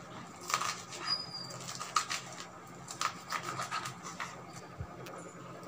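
Kitchen knife chopping manathakkali (black nightshade) greens on a wooden cutting board: irregular knocks of the blade on the board, sometimes two or three in quick succession.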